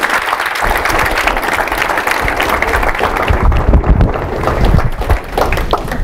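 Audience applauding steadily to welcome a speaker, thinning out toward the end, with a few low thuds about halfway through.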